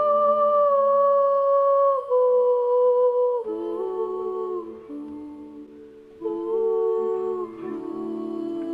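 Soundtrack music of layered wordless humming voices holding long notes that step downward in pitch. It thins to a quieter stretch about five seconds in, then new held notes enter about a second later.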